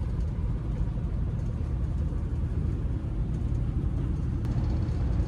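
Steady low rumble inside the carriage of a moving CrossCountry Voyager diesel train: the underfloor engine and wheels on the track, with a few faint ticks.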